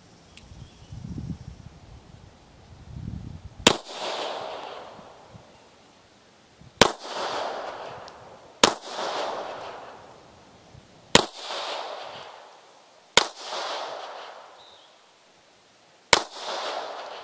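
Six shots from a Polish P-83 Wanad semi-automatic pistol in 9×18mm Makarov, fired singly two to three seconds apart, each sharp crack followed by a short echo.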